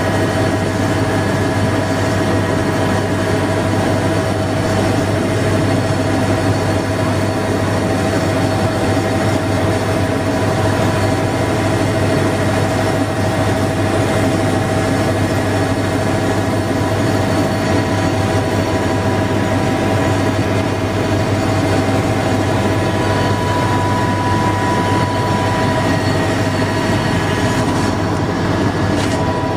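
Helicopter engine and rotor noise: a loud, steady drone with a strong low hum and several steady whining tones that do not change.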